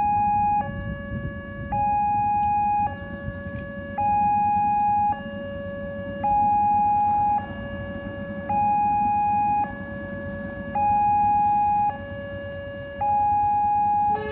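Railway level-crossing warning alarm sounding: an electronic two-tone signal alternating a louder high tone and a lower tone, each about a second long, in a steady repeating cycle. It marks the crossing as active and a train approaching.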